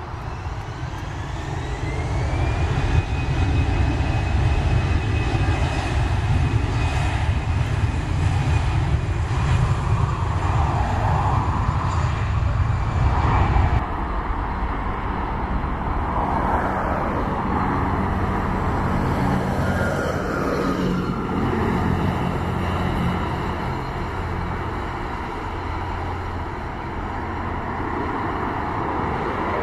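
Airbus A320 jet engines spooling up to takeoff thrust, with a whine rising in pitch over the first few seconds under a growing roar, then a steady loud roar. About halfway through, the sound changes abruptly and the roar goes on, a little quieter and rising and falling, as the jet climbs away.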